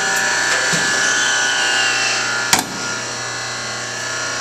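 Envipco FLEX reverse vending machine running its motor on an inserted container, a steady whir with a high whine, then a sharp clunk about two and a half seconds in, after which it runs on more quietly. The container went in without its barcode facing up, and the machine cannot turn it to read it.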